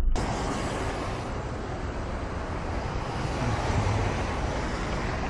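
Steady outdoor noise of wind on the microphone mixed with the rumble of vehicles and traffic around a port terminal lot. It begins abruptly just after the start, replacing the quieter in-car sound.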